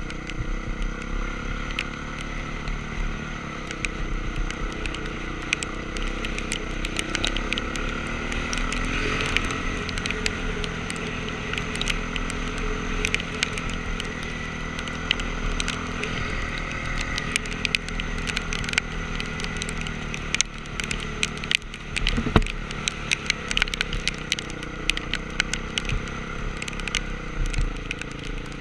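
Honda CRF450R's single-cylinder four-stroke engine running through a ride, its pitch rising and falling with the throttle, with many scattered sharp clicks over it.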